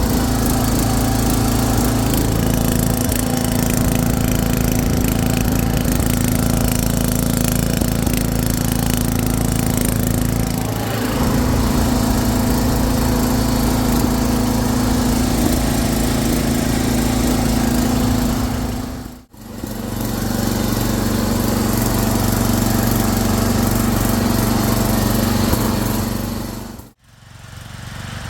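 Engine of a Craftsman garden tractor converted to a chain-driven 4x6 off-roader, running steadily as it is driven, with a brief drop in engine speed about eleven seconds in. The sound cuts out abruptly twice, about two-thirds of the way through and again near the end.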